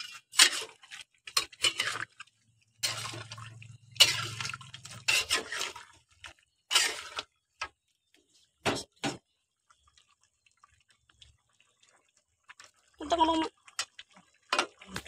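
A metal spatula stirring chicken pieces in thick soy-sauce gravy in a metal wok, with clinks and scrapes against the pan and wet dripping, sloshing sounds. The stirring stops about nine seconds in. A short voice-like sound comes near the end.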